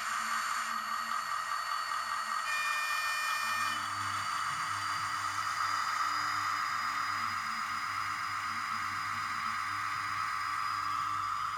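Model diesel locomotive running along the track: a steady, warbling whine from its electric motor and gears over a low rumble. A short, higher-pitched sound cuts in about two and a half seconds in and lasts about a second.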